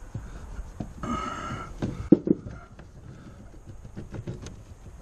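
Pliers working at a rubber fuel line and its clamp on a plastic boat gas tank: scattered small clicks and scrapes, with a short squeak about a second in and two brief low grunt-like sounds a little after two seconds.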